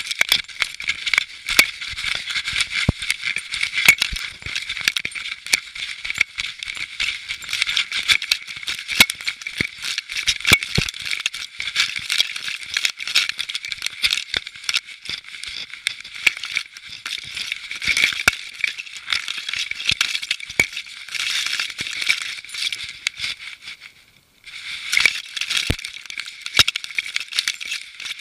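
Continuous rattling and rubbing from a camera worn on a moving dog's collar, a dense stream of small clicks and scrapes. It cuts out for under half a second shortly before the end.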